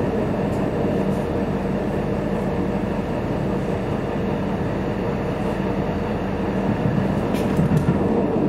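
Steady low rumble of a running vehicle with a constant droning hum, and a few light clicks near the end.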